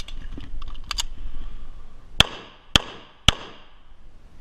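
Three pistol shots from a CZ SP-01 Tactical, evenly about half a second apart, in the second half. They are preceded by small metallic clicks and rustling of the gun being handled.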